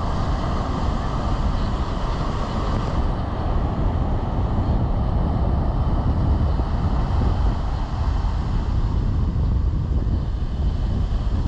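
Wind noise on the microphone over the steady wash of Atlantic surf.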